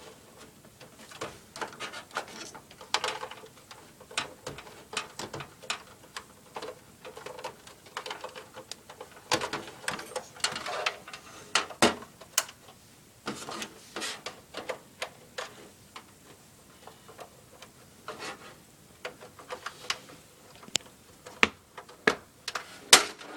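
Irregular clicks and knocks of an Xbox 360 console and its parts being handled and fitted, coming thickest about ten to fourteen seconds in and again near the end.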